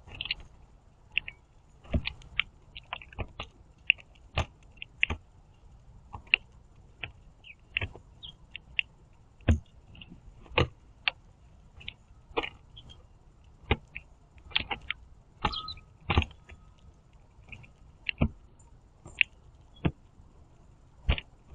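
Blue jays pecking and hopping on a wooden platform feeder: irregular sharp taps about once or twice a second as beaks and feet strike the boards, mixed with quiet, squeaky calls.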